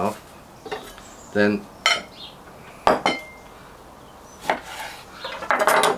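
Kitchen tools knocking and clinking on a wooden chopping board, with a few sharp knocks. Near the end a chef's knife cuts through a lime and strikes the board.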